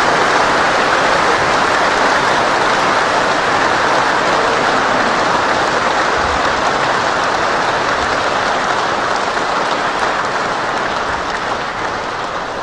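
A large crowd applauding: dense, continuous clapping that slowly grows quieter toward the end.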